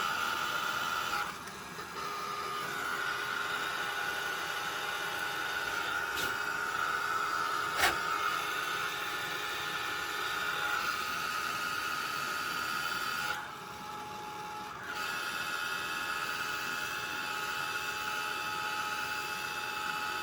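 Handheld hot-air blower running steadily with a motor whine, dropping off briefly twice, about a second in and again about two-thirds of the way through, with a single sharp click near the middle.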